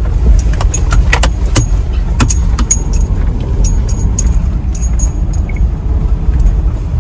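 Car driving slowly over a rough dirt track, heard from inside the cabin: a steady low rumble of engine and tyres, with frequent sharp rattles and clinks as the interior jolts over the bumps.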